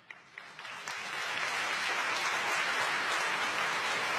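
Audience applause: a couple of scattered claps, then clapping that swells within the first second into steady applause.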